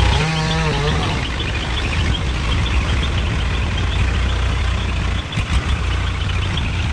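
An engine running steadily at a low, even pitch, with a brief wavering voice-like sound in the first second.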